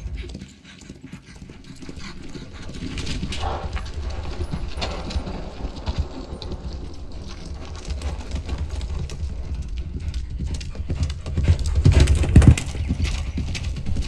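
A horse's hooves thudding on soft, loose dirt at a gallop. The hoofbeats start quietly and build to the heaviest thuds near the end.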